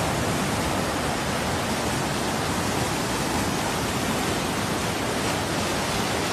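Swollen brown floodwater rushing down a river, a steady, even rush of water with no breaks.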